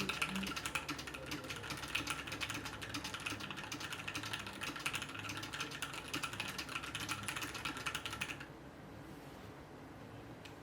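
Typing test on a custom 60% mechanical keyboard with Gateron Milky Yellow switches in a machined aluminium case: a fast run of key clacks that stops about two seconds before the end.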